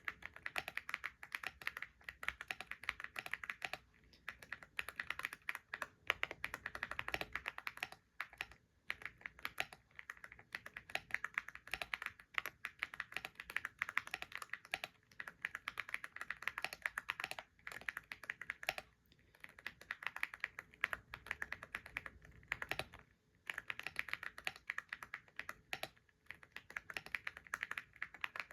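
Computer keyboard being typed on continuously, a fast run of key clicks with brief pauses every several seconds.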